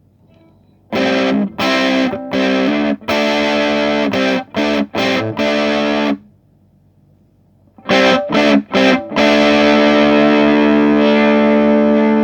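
Distorted electric guitar through a Russel RG 15 combo amp, playing a run of short, choppy chord stabs. After a pause come a few more stabs, then one chord held and left ringing.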